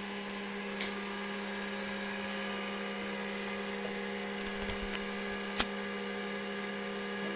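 Apple ProFile 5 MB external hard disk running as it boots up, a steady machine hum with a faint hiss, and two short clicks about five seconds in.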